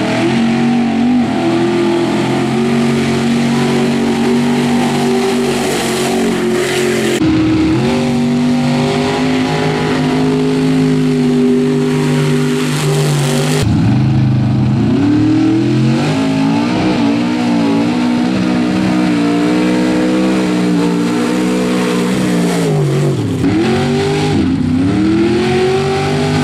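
Mud bog trucks' engines revving hard as they drive through a mud pit, the pitch rising and falling with the throttle. The engine sound changes abruptly twice, about seven and fourteen seconds in, and near the end the revs drop sharply and climb again.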